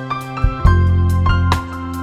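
Background music: soft keyboard notes over deep bass notes that come in about half a second in.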